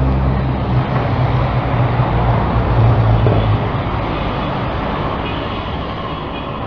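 Motor vehicle engine running with a steady low drone that drops away after about three and a half seconds, leaving a broad rushing noise that slowly fades.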